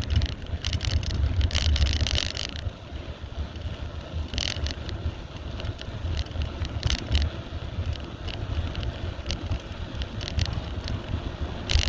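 Wind buffeting the microphone on a moving bicycle, with scattered rattles and clicks, thicker for a second or so near the start.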